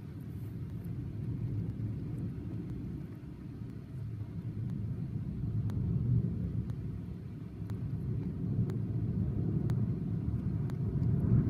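A rainstorm heard from behind a window: a low rumble that swells and fades, with faint ticks of raindrops striking the glass.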